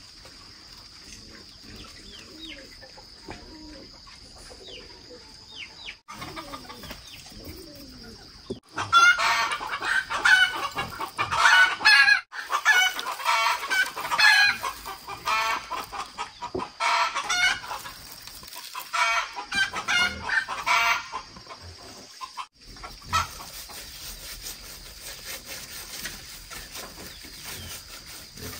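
Live chickens clucking and cackling, a long run of loud, repeated, broken calls that starts about a third of the way in and dies away past the two-thirds mark, over a steady high-pitched background tone.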